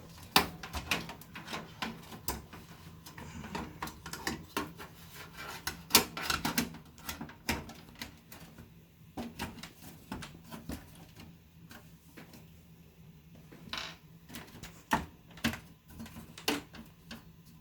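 Irregular clicks, taps and knocks of plastic and metal as a hard drive is handled and fitted into a PC case's drive bay, with a few louder knocks among them.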